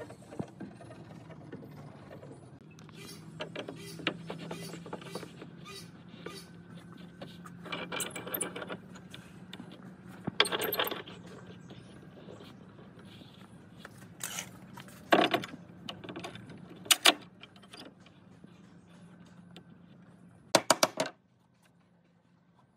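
Steel pipe clamps and wooden boards being handled during an edge-glue-up: scattered metallic clinks and knocks as the clamps are set and the boards shifted, with a quick run of sharp clicks near the end, over a faint low hum.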